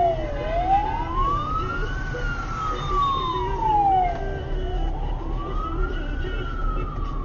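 Emergency vehicle siren in a slow wail, its pitch rising and falling about every four seconds, over a steady low rumble of road noise.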